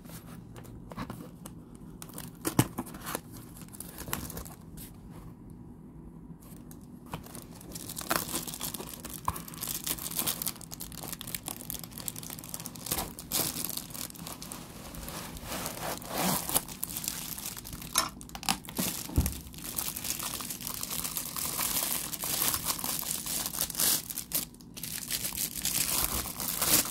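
Cardboard box being opened and a plastic-wrapped baseball-bat steering wheel lock slid out of it: cardboard scraping and plastic wrap crinkling, with scattered light knocks. The crinkling grows busier in the second half.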